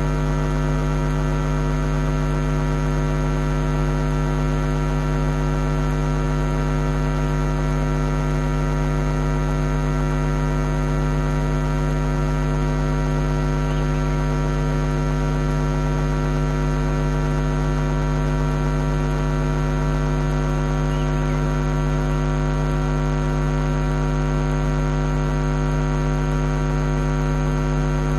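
Steady electrical mains hum with a dense stack of buzzing overtones, unchanging in pitch and level. Two faint, brief high chirps barely show through it.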